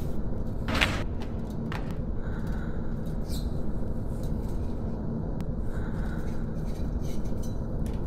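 A knife stabbing into a crusty loaf of bread, a short crunching burst about a second in with a smaller one just under two seconds in, over a steady low rumble.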